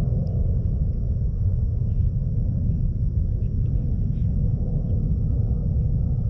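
Wind buffeting the microphone, a steady low rumble that flickers in strength throughout.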